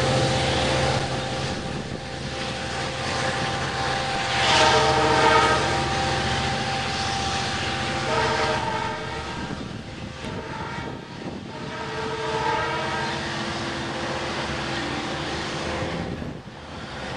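Long Island Rail Road push-pull train departing: the DM30AC diesel locomotive's engine rumbles low and steady, then fades, while the train horn sounds a series of chord blasts for the grade crossing, the loudest about four seconds in.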